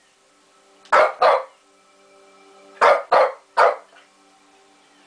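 Shih Tzu barking: two sharp barks about a second in, then three more close together around three seconds in.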